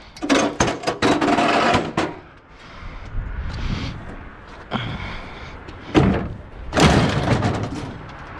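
Scrap junk being handled: a burst of knocks and rattles, then scraping, and two heavy thuds about six and seven seconds in.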